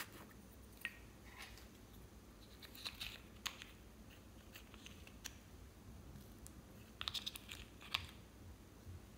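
Plastic rose-shaped lip balm pot being twisted open, then a metal spatula scraping the red balm out of it: a scatter of faint clicks and scrapes, with a sharper click near the end.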